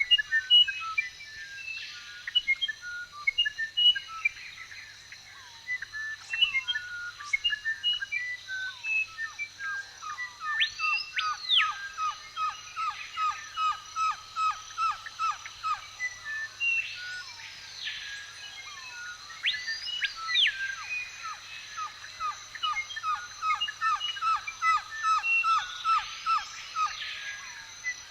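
Woodland birdsong from several birds: many short chirps, a long run of quick, evenly repeated notes through the middle, and a few whistles that rise and fall. A faint steady high tone runs beneath.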